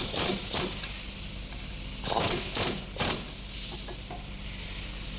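Engine repair work noises: short noisy strokes, three close together at the start and three more between about two and three seconds in, over a steady hum.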